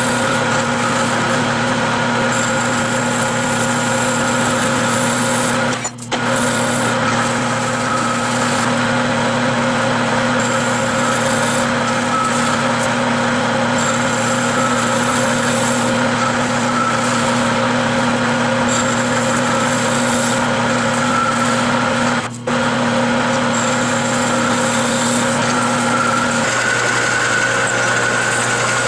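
Manual metal lathe running steadily with its chuck spinning while a ball-turning fixture's tool cuts the end of a metal bar into a ball. A steady whine from the machine's drive, with two brief drops in level about six and twenty-two seconds in.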